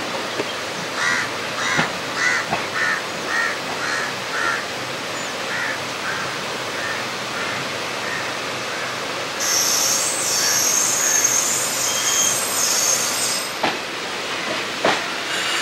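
Passenger train with ICF coaches running on the rails, its steel wheels squealing high and shrill for about four seconds past the middle. Earlier, a bird calls about a dozen times in quick succession, fading away.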